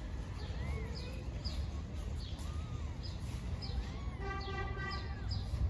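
Nursing kittens mewing: thin, high, rising-and-falling mews repeat every second or two, with one longer, steadier cry about four seconds in. Faint short high chirps recur about twice a second over a steady low rumble.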